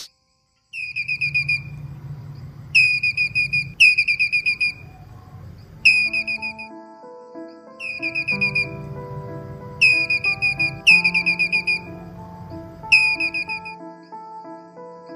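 High, whistle-like trilled calls, about eight short trills of rapid falling notes. Background music with sustained notes comes in about halfway through.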